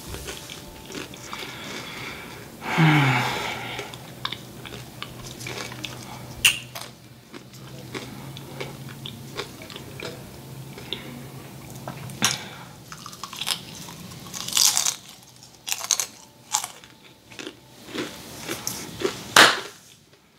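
Close-miked crunching and chewing of a crispy fried wonton, sharp bites and crackles scattered through, the loudest crunch near the end. A low hummed 'mmm' falls and then holds for several seconds about three seconds in.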